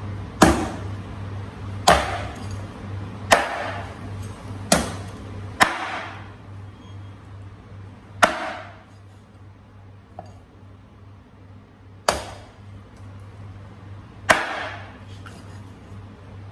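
Cleaver chopping through wild-boar trotters, bone and all, on a wooden chopping board. Eight heavy chops, each a sharp crack with a short ring: five come close together in the first six seconds, then three more at wider intervals.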